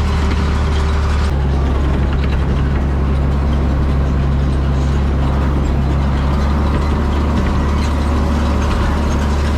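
Farm tractor engine running steadily while pulling a hay rake, its note stepping up slightly about a second in.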